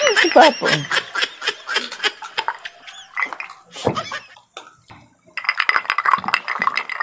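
A person's voice laughing and vocalizing, over crisp crunching from pork-rind chicharon crisps being bitten and chewed, with a brief lull a little after the middle.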